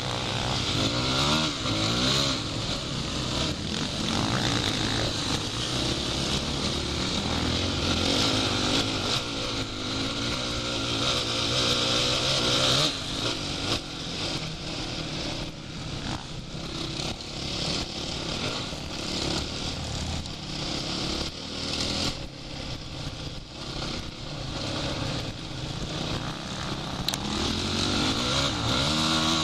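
Off-road motorcycle engine heard from the rider's own bike, revving up and down as it rides, with its pitch sweeping upward near the start and again near the end. A steady rushing hiss of wind runs under it.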